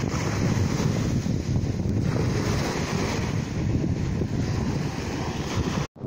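Wind buffeting the microphone over the wash of small sea waves breaking on a sandy shore, a steady low rumble. The sound cuts out for an instant near the end.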